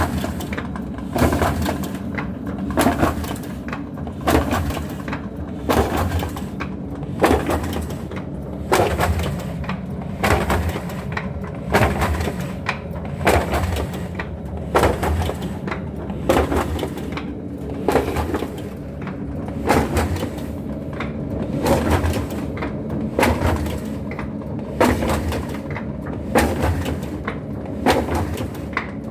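Automatic paper-feeding attachment on a printing machine running in cycles: a sharp clack, often doubled, about every one and a half seconds over a steady motor hum.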